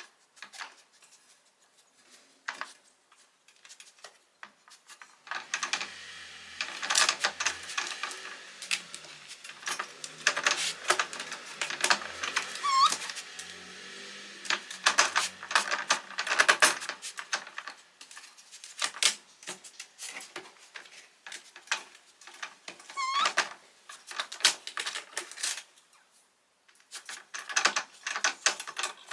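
Scratching and clicking, like small claws on a hard surface, in irregular spells that are busiest midway, with two brief high squeaks between them.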